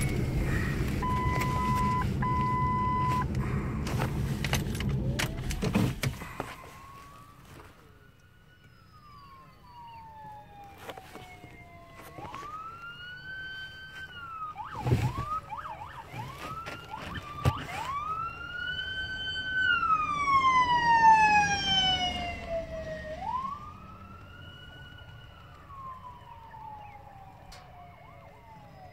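Truck engine and road noise for about six seconds, with a short steady beep, then an emergency vehicle's siren wailing in long rising-and-falling sweeps, broken by a quick yelp around the middle and loudest about twenty seconds in.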